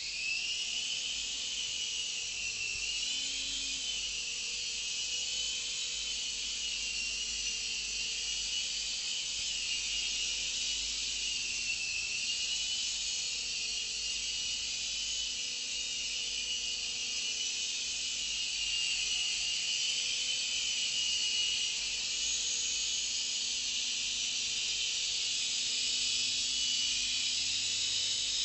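Syma S110G mini RC helicopter in flight: the high whine of its small electric motors and the whir of its rotors, steady with a slightly wavering pitch as it manoeuvres.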